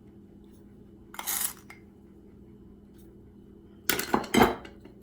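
Metal spoon clinking and scraping against a mixing bowl as ingredients are added: a short scrape about a second in, then a quick cluster of clinks near the end.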